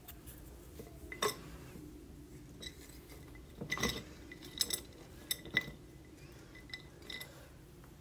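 Glass jar and metal jar lid clinking and tapping as they are handled on a wooden table: several light, separate clinks with a brief ring, the loudest about a second in and about four seconds in.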